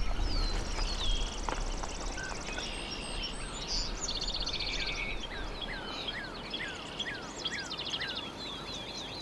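Several songbirds singing at once: rapid high trills and buzzy notes overlap with short down-slurred whistles. In the second half the whistles repeat in a quick series.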